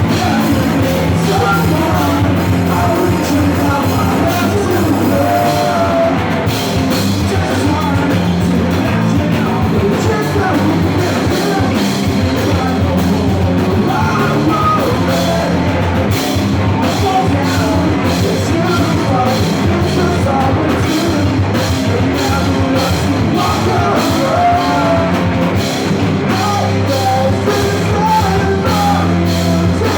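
Rock band playing live, with singing and shouted vocals; the drums settle into a steady, even beat from about six seconds in.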